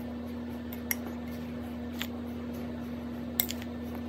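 Metal spoon stirring ground spice powder in a glass bowl, with soft scraping and three light clinks of the spoon against the glass, over a steady low hum.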